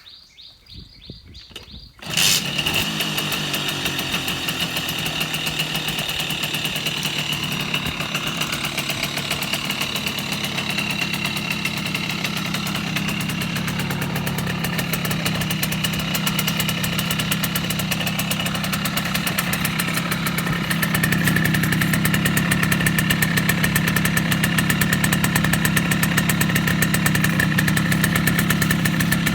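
Simson S51 moped's single-cylinder two-stroke engine starting about two seconds in, then idling steadily; it gets somewhat louder about 21 seconds in.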